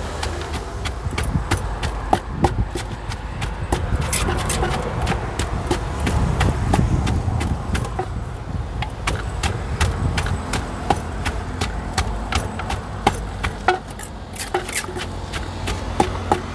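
Pestle pounding in a mortar while a Thai spicy salad is mixed: repeated, irregular sharp knocks over a steady low rumble.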